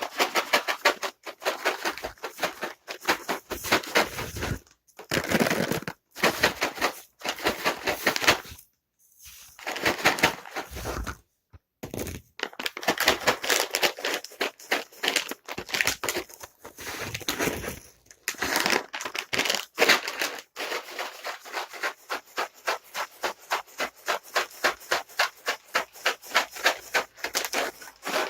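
Dry cat treats rattling as their container is shaken, first in bursts with brief pauses, then in a steady rhythm of about four shakes a second.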